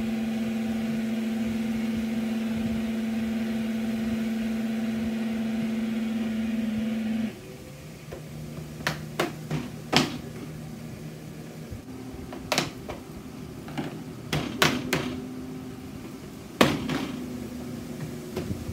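Air fryer fan motor running with a steady hum, working again after its faulty drawer micro switch was replaced. About seven seconds in the hum drops sharply, and a few sharp clicks and knocks follow as the fryer is handled, over a quieter hum.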